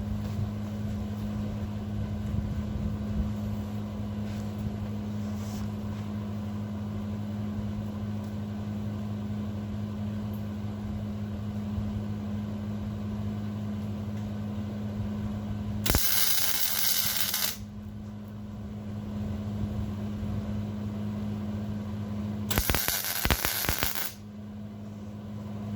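Two short arc-welding tack welds on steel railing anchor plates, each a crackling hiss lasting about a second and a half. The first comes about two-thirds of the way in and the second near the end, over a steady low hum.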